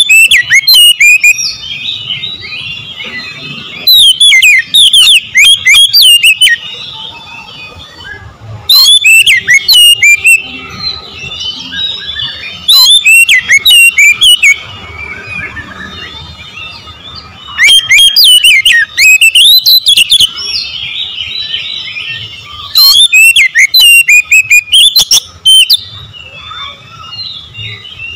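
Oriental magpie-robin (kacer) singing loudly in six phrases of rapid, sweeping notes, each a second or two long and a few seconds apart, with softer twittering between the phrases.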